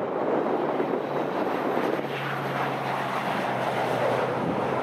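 Dornier 228 twin-turboprop at takeoff power, rolling down the runway and lifting off: a steady loud rush of engine and propeller noise with a low steady hum through the middle, and some wind buffeting on the microphone.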